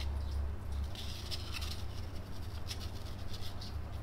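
A small strip of sandpaper scratching against polyurethane foam in two short spells, over a steady low hum.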